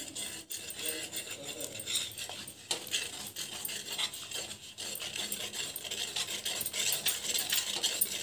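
A spatula scraping and clattering around a metal kadhai in quick repeated strokes, stirring milk powder into hot milk and ghee over a low flame.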